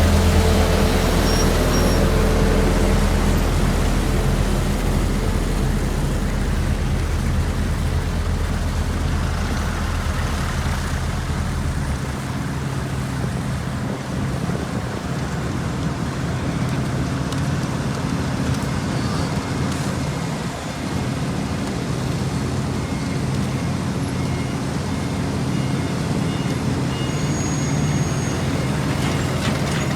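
Heavy diesel engines of asphalt paving machinery running steadily. A deep low engine drone stops about twelve seconds in, and another engine keeps running.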